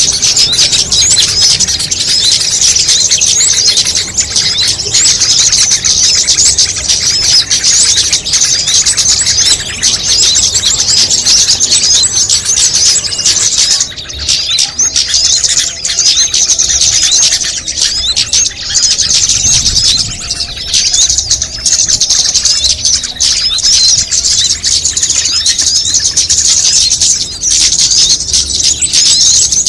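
Bird-lure recording of many small birds calling at once: a dense, unbroken chatter of high-pitched chirps and twitters.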